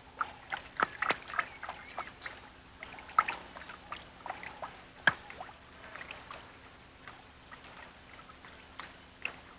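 Leopards lapping water from a pool: quick, irregular wet clicks and small splashes, busiest in the first half and thinning out later.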